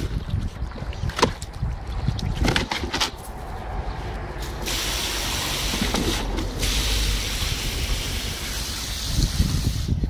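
Garden hose spraying water into a plastic tub, with splashing as a husky puppy moves about in the water, a few sharper splashes in the first three seconds.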